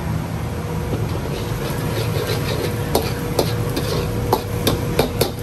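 Metal ladle knocking and scraping against a wok as chilli paste is stirred in oil, a handful of sharp clanks coming in the second half, over a steady low rumble.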